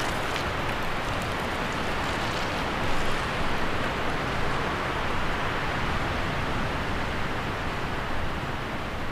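Steady rushing noise, with a few faint ticks in the first few seconds.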